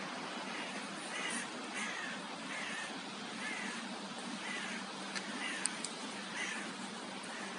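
A crow cawing over and over, about one call a second, each call falling slightly in pitch, over a steady background hiss. A couple of sharp clicks come about five and a half seconds in.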